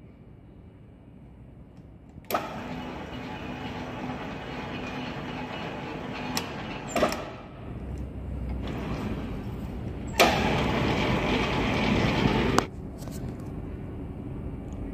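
Centre lathe running while an internal square thread is cut with a boring-bar threading tool: a steady mechanical drone with a faint hum and a few clicks. It starts abruptly about two seconds in and is louder for a couple of seconds around the ten-second mark.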